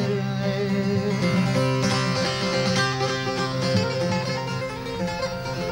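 Instrumental break in a Turkish folk lament: a plucked string instrument plays a melody over steady, sustained low notes, with no singing.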